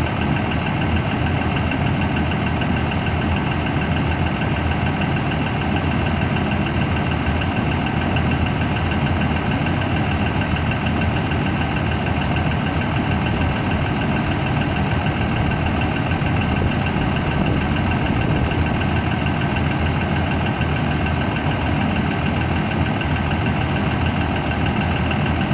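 The Cummins B6.7 inline-six turbodiesel of a 2019 Thomas Saf-T-Liner C2 school bus idling steadily, with a steady high tone running over the engine sound.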